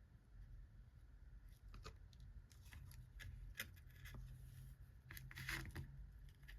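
Faint scattered taps and paper-like rustles of chipboard craft pieces being handled and lined up, with a longer rustle about five seconds in.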